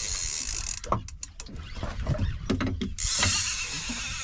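Fishing reel working under the load of a big hooked fish: the reel's gears and drag whirring and clicking. Through the middle the steady high whir gives way to a run of sharp clicks and knocks.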